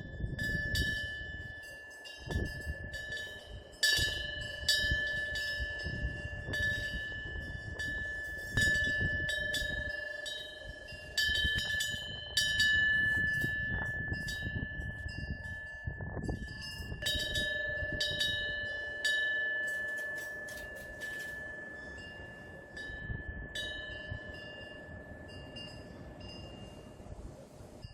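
Korean temple wind bell (pungyeong) struck again and again by its swinging clapper at irregular intervals of a second or two. Each strike rings on in one clear high tone that overlaps the next, over a low rumbling noise.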